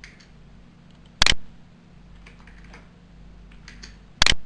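Two sharp computer input clicks, about three seconds apart (one about a second in, one near the end), over a faint low steady hum.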